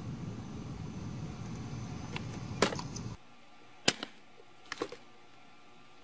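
A few sharp taps on a plastic water bottle of supercooled distilled water, the nudge that sets it freezing. A steady low hum underneath cuts off suddenly about three seconds in.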